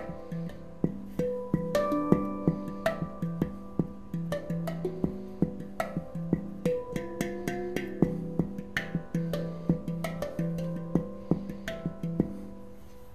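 Celestial Sound handpan tuned in E Ostara, played with the fingers and hands: a rapid run of struck notes that ring and overlap over a sustained low note. Near the end the strikes stop and the notes ring out.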